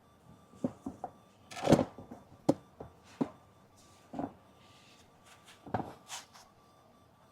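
Irregular knocks and clunks of hard plastic GreenStalk planter parts being handled and fitted together, about ten in all. The loudest comes about a second and a half in, and a few more fall close together near the end.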